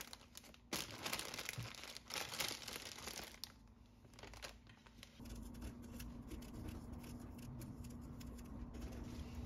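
Crinkling and rustling handling noise with a few sharp clicks for the first few seconds, then a steady low hum from about five seconds in.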